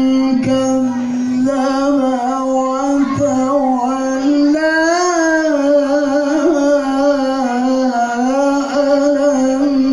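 A qari's voice reciting the Qur'an in melodic tilawah style, holding long notes with wavering ornaments, the pitch climbing about halfway through.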